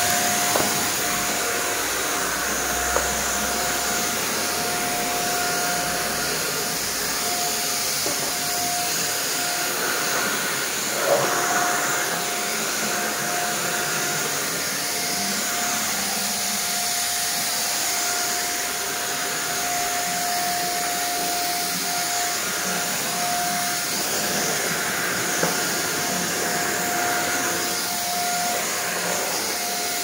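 Corded handheld vacuum cleaner, with an extension stick and floor nozzle, running steadily with a constant whine as it is pushed across a marble floor. There are a couple of brief light knocks.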